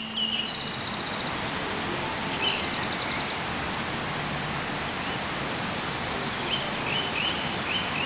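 Steady rush of a waterfall pouring over a rock ledge, with songbirds singing over it: trills about half a second in and again near three seconds, and a run of repeated chirps near the end.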